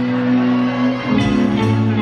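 Live band music: steady held bass notes under guitar, with the notes changing about a second in.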